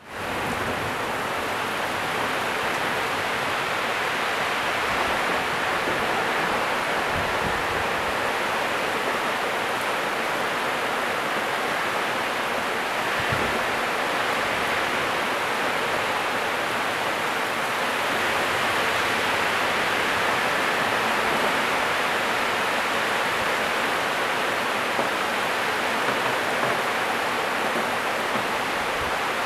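Heavy downpour of rain, a steady, even hiss that holds the same level throughout.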